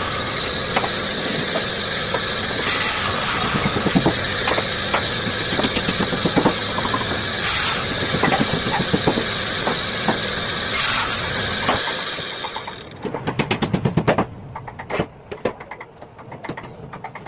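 Table saw running with a steady high whine, its circular blade cutting particle board in several short bursts of harsh noise. About 13 seconds in the whine stops, and a run of irregular clattering knocks follows.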